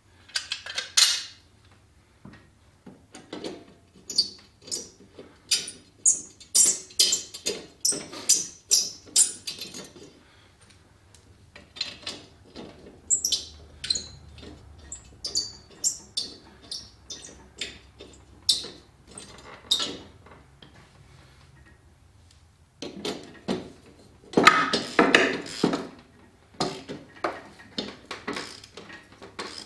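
Sharpened steel mower blades of a Honda HRX217 clinking and clattering against each other and the blade holder as they are fitted under the deck, with scattered sharp clicks. Near the end comes a denser run of rapid clicking from a ratchet wrench working the blade bolts.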